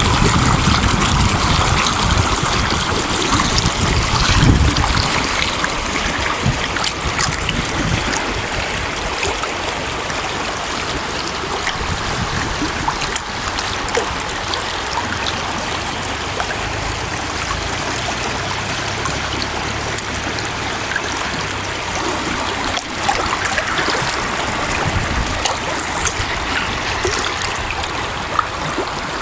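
Stream water rushing and splashing over stones in a steady, continuous flow.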